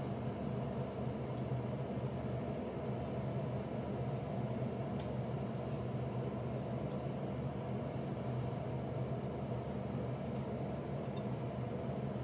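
Steady low hum and hiss of a running kitchen fan, with a few faint light clicks of a metal fork against a plate.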